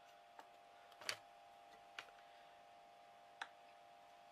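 Four faint, sharp clicks from small scissors and a hot glue gun being handled at a craft table, the loudest about a second in, over a steady faint hum.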